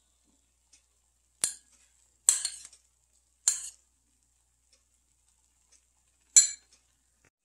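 Metal spoon clinking against the dishes while seasoning sauce is scooped from a bowl onto rice in a pot. Four sharp clinks, the first three about a second apart and the last after a longer pause.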